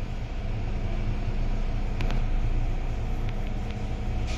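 Steady low running rumble heard inside a Metro-Cammell M-Train carriage as the train moves along the track. A few sharp clicks come about two seconds in and again near the end.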